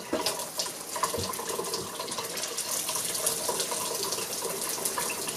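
Tap water running steadily through a faucet-mounted Brita filter, a thin stream splashing into a stainless steel sink.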